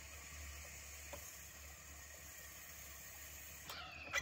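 Glass water pipe bubbling softly and steadily as air is drawn through it from a heated FlowerPot vaporizer. Near the end comes a short ringing clink.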